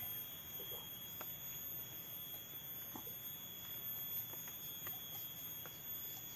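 Steady high-pitched drone of forest insects, with a few faint soft ticks and rustles from hands working the soil and plants while setting water spinach cuttings.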